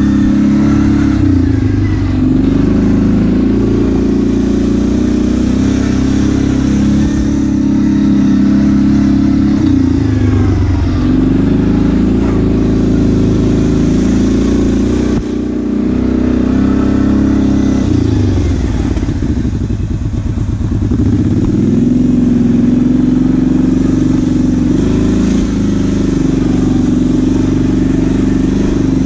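ATV engine running under way, its pitch rising and falling as the throttle is opened and eased off, with a drop in revs about two-thirds of the way through before it picks up again.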